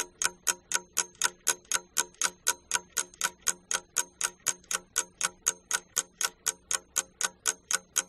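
Ticking-clock sound effect, even ticks about four a second, used as a timer cue giving pupils time to think over a question.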